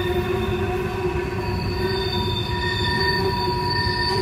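Empty coal hopper cars rolling past, their wheels squealing in several steady high tones that fade in and out over a low rumble of wheels on rail. This is the flange squeal of freight-car wheels grinding through a sharp curve.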